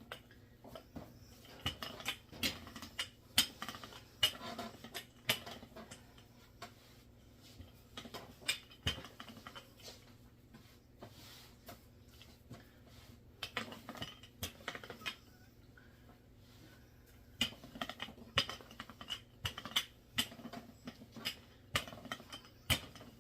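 Rolling pin working yeasted dough on a floured table: irregular light clicks and knocks in spells, quieter for a few seconds midway.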